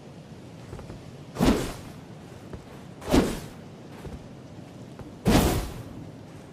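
Katana sword sound: three loud whooshing strokes, each rising fast and trailing off within about half a second, spaced roughly two seconds apart.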